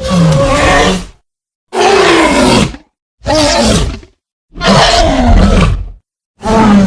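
Tyrannosaurus rex roar sound effects: five separate roars, each about a second long, falling in pitch, with brief silences between them.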